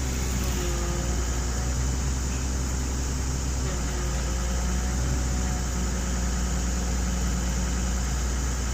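Excavator's diesel engine running steadily, with faint whines that slide up and down in pitch over the drone.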